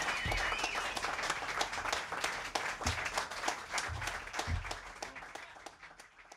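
Audience applauding with many hands clapping, the applause thinning and fading out toward the end.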